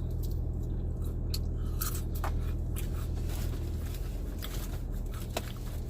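Close-up chewing and biting into crispy Popeyes fried food, with scattered short crunches and mouth clicks, over a steady low hum.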